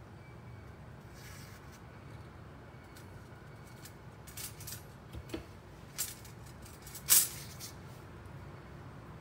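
Light clicks and scrapes of bamboo skewers knocking against a stainless saucepan and a steel steamer basket, several in the second half with the sharpest near the end, over a steady low hum.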